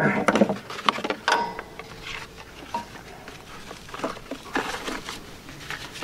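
A few light clicks and knocks of hand tools being handled as the engine's oil drain plug is turned out by hand, followed by faint scattered taps.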